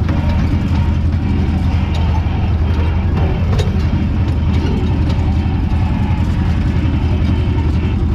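Farm tractor's diesel engine running steadily under load, heard from inside the cab while it tows a finger-wheel hay rake.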